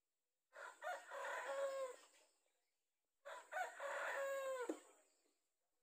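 Rooster crowing twice, each crow about two seconds long, the second ending in a falling note.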